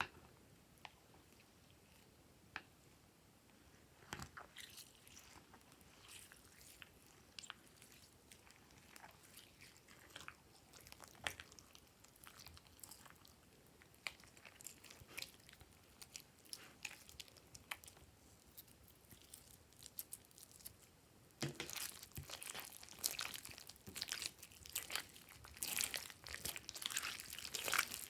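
Slime being handled and squished, with scattered small clicks and pops that become a denser, louder crackling about three quarters of the way through.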